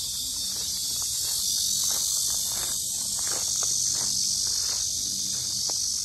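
A chorus of cicadas buzzing, a loud, steady high-pitched hiss that swells slightly in the middle.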